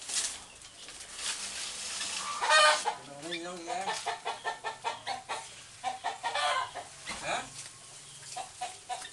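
Chickens clucking in short repeated calls, the loudest about two and a half seconds in.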